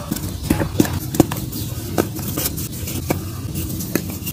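Dried mud being broken and crumbled by hand: crisp cracks and crunches of the dry chunks snapping apart, several sharp snaps at irregular moments over a grainy crumbling.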